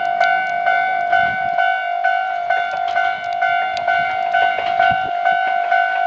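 Japanese railway level-crossing warning bell ringing, a single pitched ding repeated rapidly and evenly, while a Kintetsu train's wheels click over the rail joints through the crossing.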